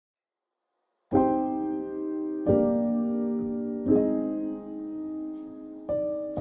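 Background piano music beginning about a second in: slow chords struck one at a time, each left to ring and fade before the next, four in all.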